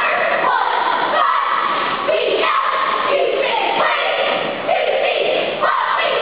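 A squad of cheerleaders shouting a cheer in unison, many girls' voices chanting the words together in short held blocks.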